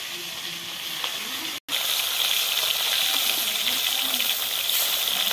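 Fish pieces frying in hot oil in an iron wok, a steady sizzle. It cuts out for an instant about one and a half seconds in and comes back a little louder.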